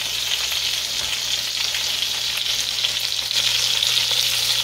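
Pork roast juices and cream of mushroom soup sizzling and spattering in an enamelled Dutch oven on a hot stovetop: a steady crackling hiss that grows slightly louder near the end, over a low steady hum.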